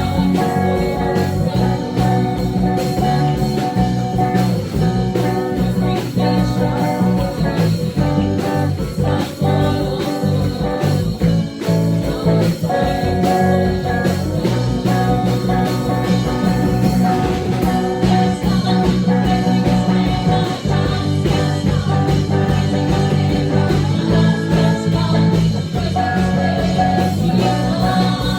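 Praise and worship song played by a band with guitar, with a singing voice.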